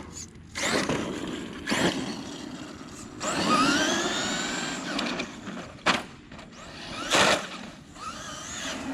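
Traxxas E-Maxx electric RC monster truck running, its electric motors whining and sweeping up and down in pitch as it speeds up and slows, with bursts of tyre and drivetrain noise.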